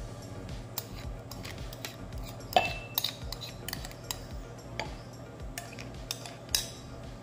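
Metal spoon scraping and clinking against a ceramic bowl while scooping out a thick blended strawberry mixture, with a louder ringing clink about two and a half seconds in and another near the end.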